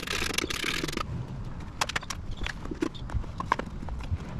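Hands fitting a soft motorcycle saddlebag and its straps onto a rear luggage rack: a rasping pull of strap or fabric lasting about a second, then scattered light clicks and knocks.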